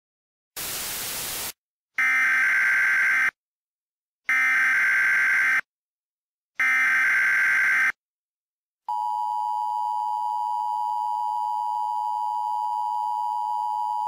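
Emergency Alert System tones opening a new alert. About half a second in comes a second of static hiss. Then come the three SAME digital header signals, each a harsh warbling data tone just over a second long. About nine seconds in, the steady two-tone EAS attention signal begins.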